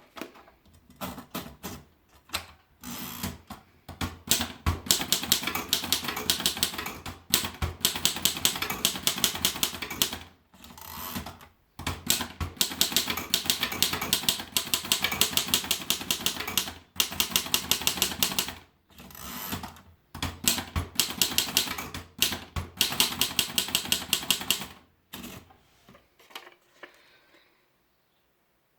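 Erika model 5 portable typewriter being typed on: fast runs of sharp keystroke clacks in several long bursts with short pauses between them, stopping about 26 seconds in.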